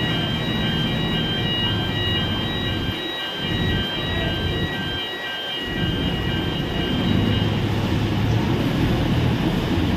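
Heavy diesel construction machinery, a mobile crane and a backhoe, running steadily, with an electronic warning beeper sounding a rapid repeating pattern of high tones that stops about seven and a half seconds in.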